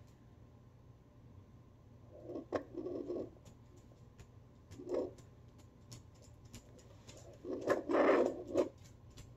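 Handheld fetal doppler's speaker hissing and crackling with scratchy clicks as its probe is moved over a pregnant schnauzer's furred belly. Whooshing bursts come a couple of seconds in, again about halfway, and loudest near the end.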